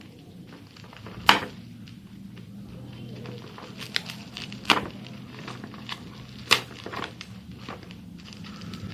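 A delivery parcel's plastic packaging being opened by hand: crinkling and handling noise with three sharp, loud snaps, about a second in, near the middle and about two-thirds through, and a few smaller clicks between. A low steady hum runs underneath.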